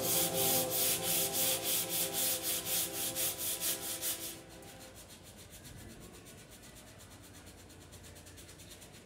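Hand sanding a white-coated panel with a sanding pad: quick back-and-forth scraping strokes, about four or five a second. After about four seconds the strokes fade to a much fainter rubbing.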